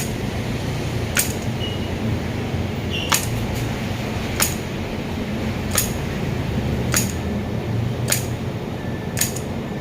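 A series of sharp, short clicks or taps, about eight in all, coming roughly every second or so at an even pace, over a steady low hum.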